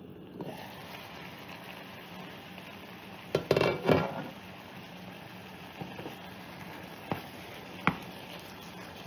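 Chicken simmering in its own yogurt-marinade liquid in an electric skillet, a steady sizzle. About three and a half seconds in, the glass lid is lifted off with a loud clatter, then a wooden spoon stirs the chicken, tapping the pan a few times.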